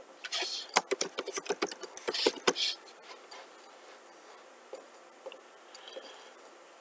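Typing on a computer keyboard: a quick run of keystrokes for about two and a half seconds, then a few faint clicks.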